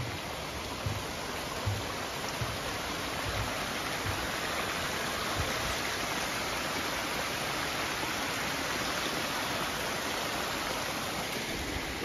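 Small forest creek trickling and splashing over rocks in a steady rush that swells a little in the middle. Footsteps thud on a wooden footbridge, about one a second, in the first few seconds and again near the end.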